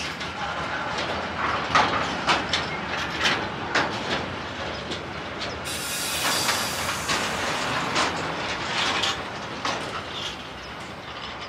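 Freight train of covered bulk hopper wagons rolling past, its wheels clicking unevenly over the rail joints. A stretch of hissing comes in about six seconds in and lasts a second or two.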